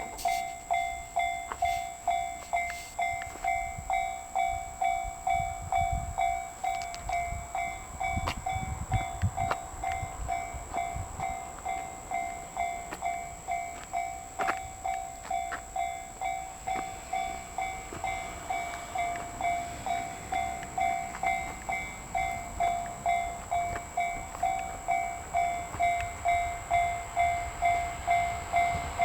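Japanese railway level-crossing alarm ringing, an evenly repeated electronic bell that warns of an approaching train.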